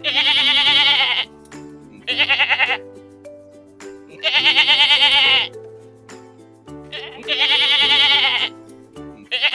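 A bleating farm animal calling five times, each call about a second long with a quavering tremble, over background music with steady sustained notes.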